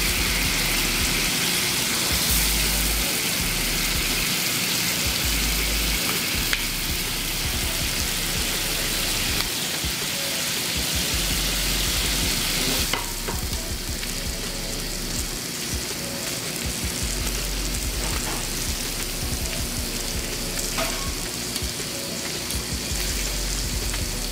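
Corn tortillas sizzling on a hot flat-top griddle: a steady frying hiss that drops slightly about halfway through, with a few light clicks.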